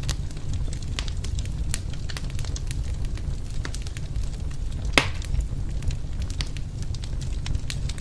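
Wood fire burning in a fireplace, crackling with many small pops and one sharper pop about five seconds in, over a low steady rumble.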